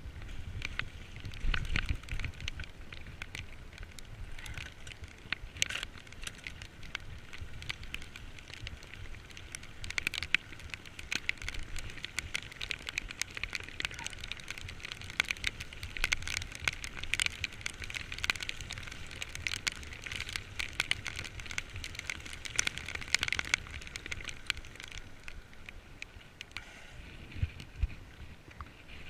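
A bicycle ridden in heavy rain: a dense crackling patter of rain and wet tyre noise, with low wind rumble coming and going.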